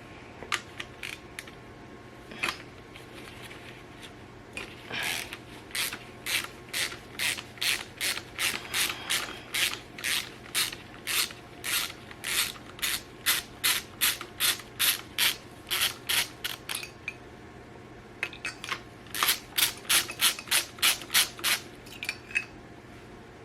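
Ratchet wrench clicking in quick, even strokes, about two to three a second, as a spark plug is backed out of a Dodge 5.2 L Magnum V8. There is a long run of strokes, a short pause, then a second shorter run.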